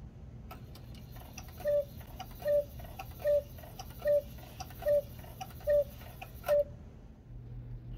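The brass movement of a 1950s German one-day cuckoo clock ticking as its pendulum swings. A louder, slightly ringing tick comes about every 0.8 s with fainter clicks between, and the ticking stops about 6.5 s in.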